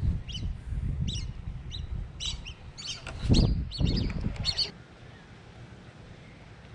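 Small birds chirping in short, quickly repeated high calls, over a low rumble. Two louder, noisier bursts come a little after three seconds and around four seconds in, and the chirping stops at about four and a half seconds.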